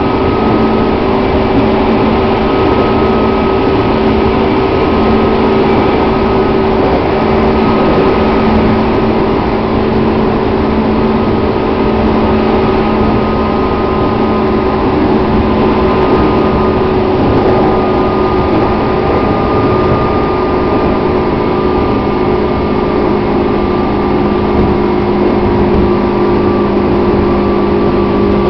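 A JR 205 series electric commuter train running at steady speed, heard from inside the carriage: a steady hum in a few held tones over the continuous rumble of the wheels on the rails.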